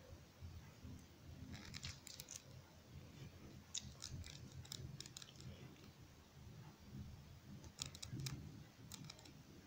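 Near silence: quiet room tone with faint scattered clicks in three short clusters.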